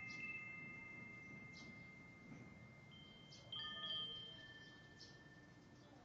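Hanging wind chime of metal tubes ringing, several tubes struck together at the start and again about three and a half seconds in, their tones holding on and slowly fading.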